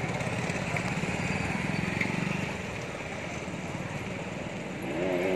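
A small vehicle engine idling with a steady, rapid pulse, dying away about halfway through. A man starts speaking near the end.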